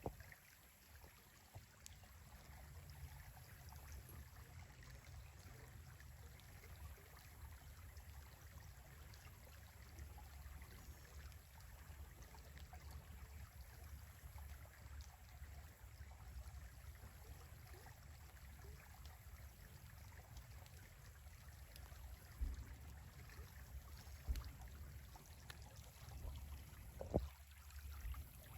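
Faint trickling of a small stream running through a cypress swamp, over a low steady rumble. A few soft low thumps come in the last several seconds, the loudest near the end.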